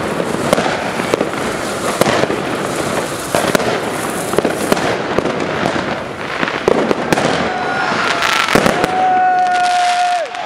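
Fireworks and firecrackers going off in a dense, rapid run of crackling pops and bangs, over a steady hiss. The crackling thins out about nine seconds in as a long steady tone takes over.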